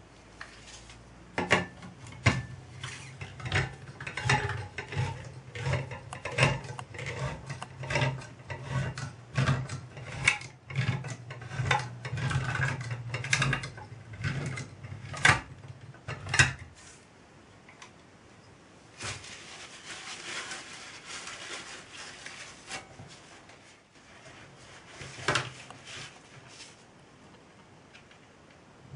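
Handheld can opener cutting around the rim of a large tin can: a rapid run of clicks and grinding scrapes that stops abruptly about 17 seconds in. After a pause comes softer rubbing and rustling of paper.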